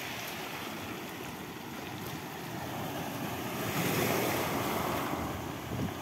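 Sea surf breaking and washing over pebbles and boulders at the water's edge, with wind buffeting the microphone. The surf swells louder about four seconds in.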